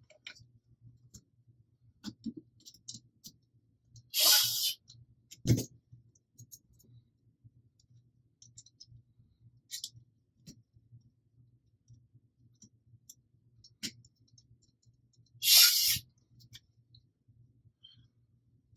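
Scattered small clicks and taps of blaster parts and screws being handled during assembly, over a faint steady hum. There is a louder, brief noisy sound about four seconds in and another about fifteen seconds in, and a sharp knock at about five and a half seconds.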